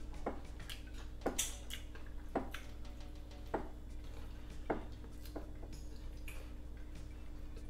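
Wet lip smacks and chewing from a person eating with their fingers, a sharp smack about once a second, over a steady low hum.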